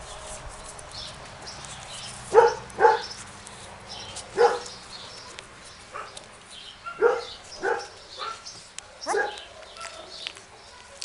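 A dog giving about seven short, sharp barks at irregular intervals, some in quick pairs, with fainter high squeaks between them.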